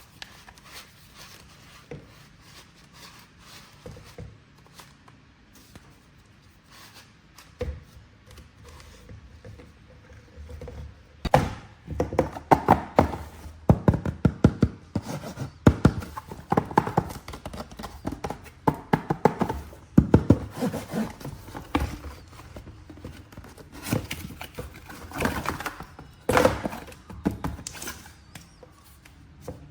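Hands unpacking and handling a boxed plastic action figure: faint scattered ticks at first, then from about a third of the way in a busy run of sharp clicks, knocks and rustles that die down near the end.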